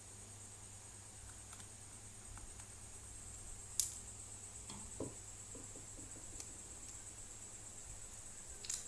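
A few sharp clicks and a soft knock from small plastic and metal laptop parts being handled, over a steady faint high whine and low hum.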